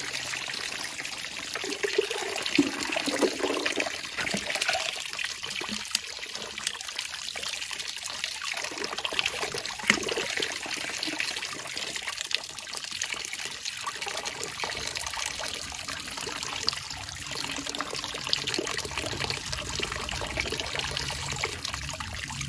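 Mountain spring water trickling and pouring steadily, filling a bottle with drinking water.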